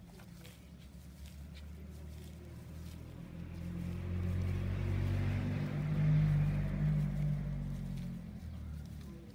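A motor vehicle drives past, its engine hum growing louder to a peak about six seconds in and then fading away. Faint clicks of straw strands being handled in weaving are heard throughout.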